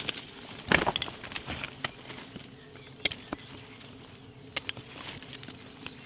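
Scattered knocks, clicks and rustles of a person shifting on gravel and handling gear, the loudest knock about a second in.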